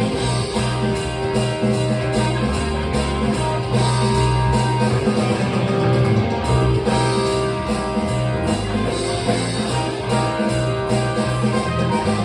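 A rock band playing: guitar over bass and a drum kit keeping a steady beat.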